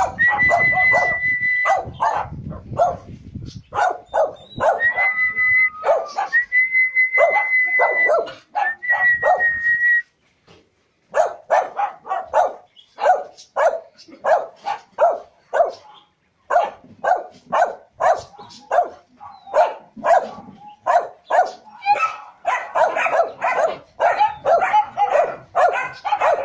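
Dog barking repeatedly, about two barks a second, with a brief pause about ten seconds in and the barking growing denser near the end. In the first ten seconds a high, steady tone comes and goes over the barks.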